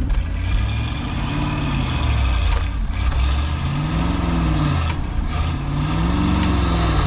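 1971 Ford F600's V8 revved up and down three times, about two seconds apart, in reverse gear with the clutch let out. The engine is struggling against a load but the truck does not move, which the owner puts down to rear brakes locked on.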